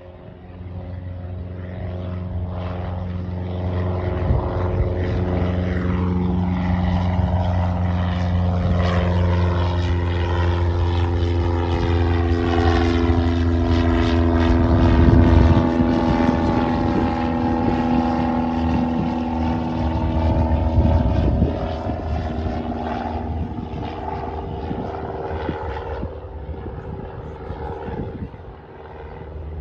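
Single-engine high-wing propeller plane flying past: its engine and propeller drone grows louder, peaks about halfway through, then drops in pitch and fades as it moves away.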